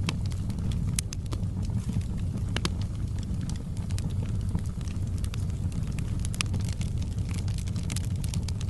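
Wood fire crackling in a fireplace: irregular sharp pops and snaps, about one or two a second, over a steady low rumble.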